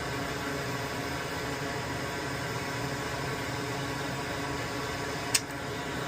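Steady blowing hiss of a hot-air rework station, heating solder joints to free a large relay from a circuit board. A single sharp click sounds near the end.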